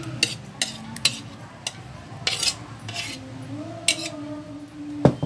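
A spoon clinking and scraping against a glass mixing bowl as thick tomato meat sauce is stirred into cooked macaroni, in a handful of separate strokes with a sharper knock near the end.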